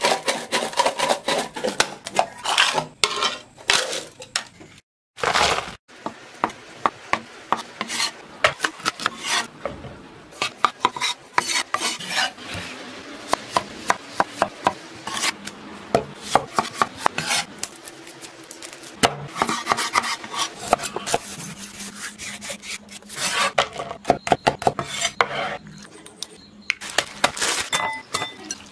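Kitchen food-prep sounds: a cleaver chopping a vegetable on a wooden cutting board in repeated sharp knocks, along with rubbing and scraping, and bowls clinking as they are handled.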